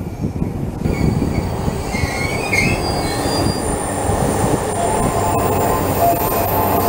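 Yamanote Line electric commuter train pulling into the platform and braking to a stop, with a steady rumble and a brief high brake and wheel squeal about two seconds in.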